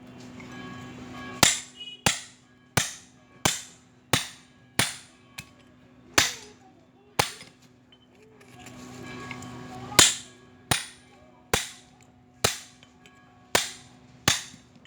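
Hammer blows on the steel casing of a refrigerator compressor being broken open for scrap: about fifteen sharp, ringing metal strikes, roughly one every 0.7 seconds, with a pause of about three seconds in the middle.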